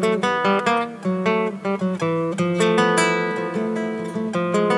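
Solo nylon-string classical guitar fingerpicked live, an instrumental passage of plucked single notes and chords between sung verses of an Argentine folk song.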